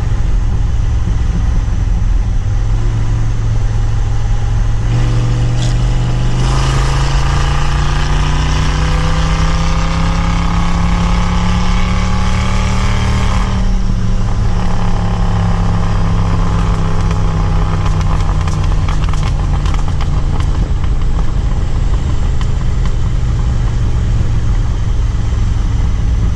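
Small-block Chevy 350 V8 in a 1947 Willys truck, running loud through open exhaust cutouts and straight pipes. About six seconds in it accelerates hard, the pitch climbing steadily for about seven seconds, then it lets off and settles back to a steady cruise.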